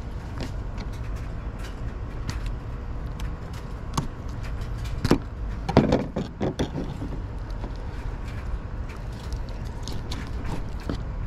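Handling sounds from gutting a small mangrove snapper by hand on a plastic table: scattered light clicks and soft handling noises as the belly is pulled open, with a short cluster of louder knocks a little past the middle, over a steady low rumble.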